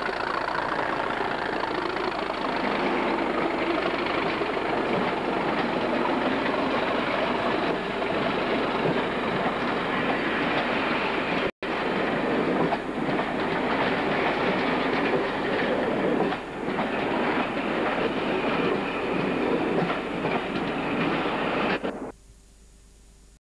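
Class 37 diesel locomotive's English Electric V12 engine running as it hauls passenger coaches past, then the coaches rolling by with their wheels clacking over the rail joints. The sound cuts off suddenly near the end.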